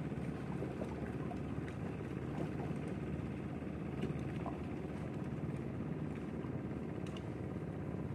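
Steady low outdoor rumble of wind on the microphone and choppy lake water against the shore rocks, with a few faint clicks.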